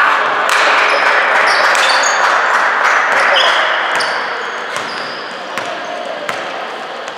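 Basketball game sounds: a ball bouncing on the court and short, high sneaker squeaks over a loud din of players' voices that eases off after about four seconds.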